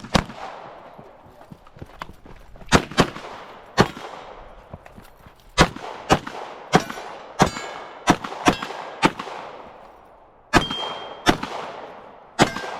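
A string of about fifteen handgun shots fired at an uneven pace during a timed drill, some in quick pairs and others a second or more apart, each leaving an echoing tail.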